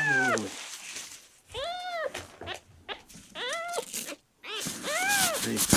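Ten-day-old kitten mewing: four short, high cries about a second and a half apart, each rising and then falling in pitch.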